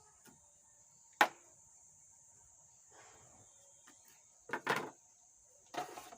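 Handling noises at an electronics workbench: a sharp click about a second in, then softer rustling, a louder double clatter and a short rustle near the end, as tools and small parts are moved and picked up.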